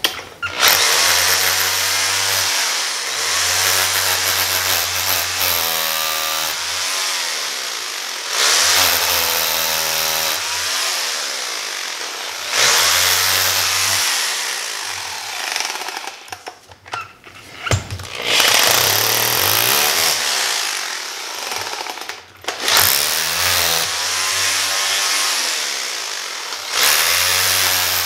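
Electric drill boring into a bowling ball's coverstock and core around the thumb insert, running in repeated bursts of a few seconds with short pauses between them, its pitch sagging and recovering as the bit bites and frees.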